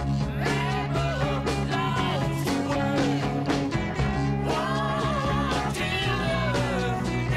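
Rock song with a singing voice over sustained bass notes and a steady drum beat.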